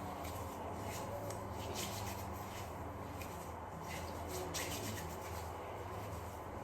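Faint, soft, irregular rubbing of hands on skin while a thin skincare product is spread and worked in.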